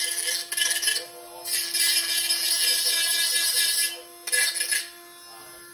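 Cordless rotary tool running with a steady hum while its bit grinds into plastic. The grinding comes in three harsh hissing bursts: a short one at the start, a longer one of about two seconds from a second and a half in, and a brief one near the end.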